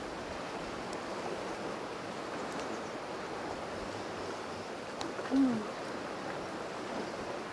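Steady wash of distant sea surf. About five seconds in comes one brief, low vocal sound that falls in pitch.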